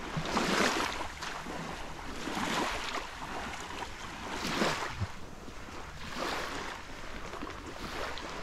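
Small sea waves washing in on the shore in about five swells, roughly two seconds apart.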